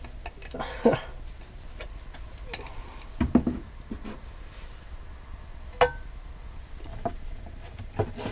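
Scattered clicks, scrapes and knocks of a utensil working at rock-hard coconut oil in a jar, with one short ringing clink about six seconds in.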